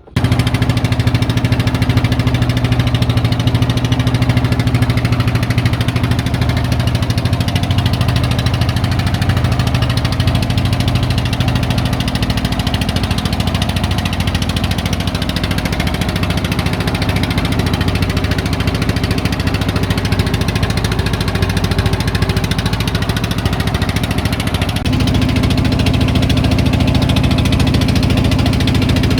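An engine running steadily at a constant speed, its note stepping up slightly about 25 seconds in.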